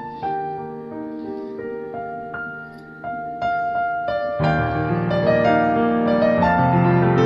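Background piano music: a slow, gentle melody of single held notes that grows fuller and louder, with deeper chords, about four seconds in.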